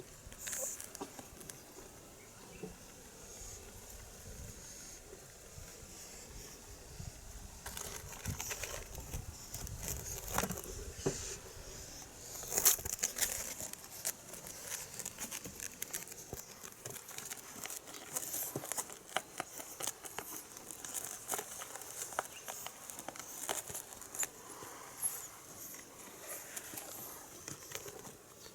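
Kittens at play with a toy: scattered light taps, scrabbling and rustling, with one sharper knock a little under halfway through.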